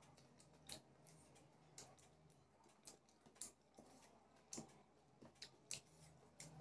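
Faint eating sounds: scattered sharp, wet clicks and smacks at irregular intervals as rice and curry are mixed by hand and eaten, over a faint steady low hum.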